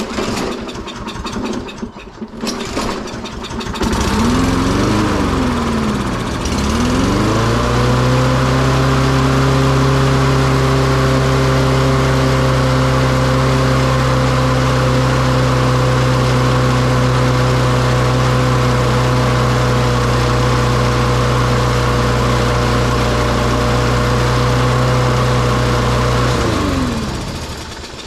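Toro lawn mower's small single-cylinder engine being pull-started after its carburetor was cleaned with brake cleaner. It sputters for a few seconds, catches about four seconds in and surges briefly, then runs steadily. Near the end it is shut off and winds down.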